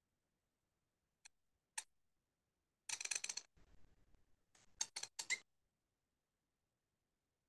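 Broad-nibbed calligraphy pen scratching across paper as letters are written: two faint ticks, then a rasping scrape about three seconds in and a cluster of short scratchy strokes about five seconds in.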